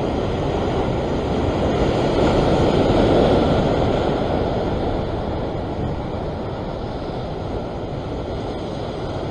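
Sea surf surging and washing against the rocks below, with wind on the microphone; a wave swells to a peak about two to four seconds in, then eases back.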